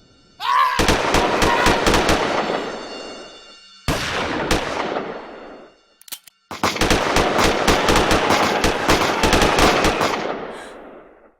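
Rapid automatic gunfire in three long bursts of many shots each, every burst fading out in a ringing tail, with a brief gap about three and a half seconds in and a sudden drop to silence around the six-second mark.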